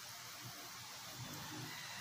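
Quiet steady hiss with faint soft sounds of grilled T-bone steak being pulled apart by hand and eaten.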